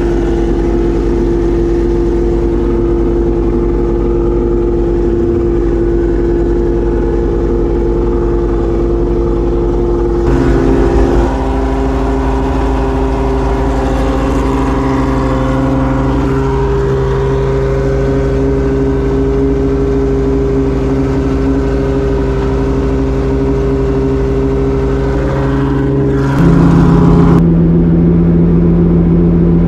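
Homemade 5-litre V12 engine idling steadily in a land speed car. Its note shifts about ten seconds in and again near the end, where it gets a little louder.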